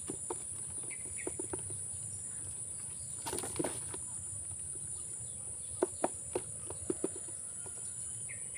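Steady high-pitched drone of insects throughout. A short rustle comes about three seconds in, and a few sharp clicks follow around six to seven seconds in.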